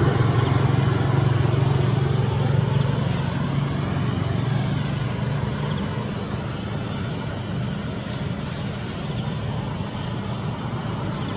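A motor vehicle engine hum fading away over the first few seconds, then steady road-traffic noise.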